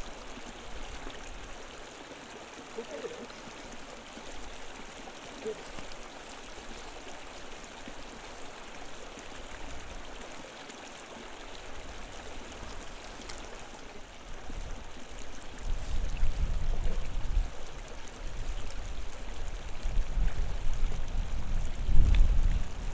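Steady hiss of a flowing brook. From about two-thirds of the way in, a low rumble comes and goes over it, loudest just before the end.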